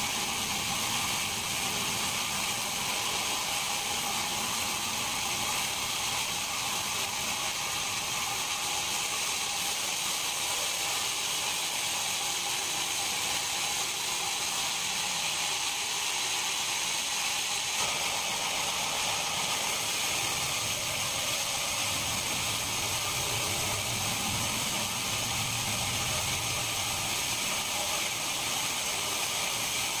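Band sawmill cutting through a large mahogany cant, with the blade and its drive running in a steady high-pitched hiss and faint high whine that carries on without a break.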